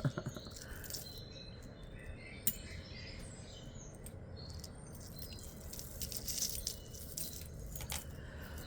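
Small pieces of costume jewelry clinking and rattling lightly as they are handled, in scattered light clicks with one sharper tick about two and a half seconds in.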